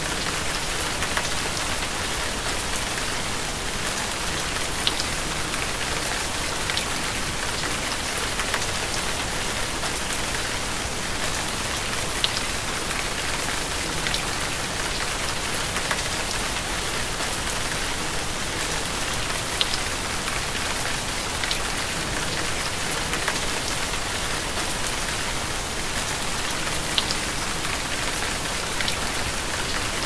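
Steady rain falling, an even hiss with single drops ticking out sharply every second or two.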